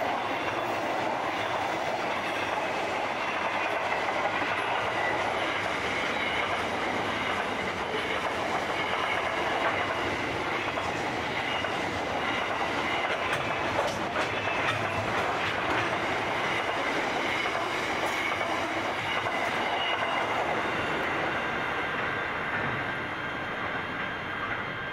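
Container wagons of a long freight train rolling past at speed, their wheels clicking over rail joints, with a thin high wheel squeal. The sound eases slightly near the end as the last wagons go by.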